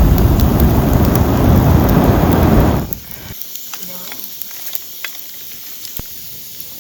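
A loud rush of air on the microphone for about three seconds, cutting off suddenly, then a campfire of still-wet wood hissing and crackling with small sharp pops.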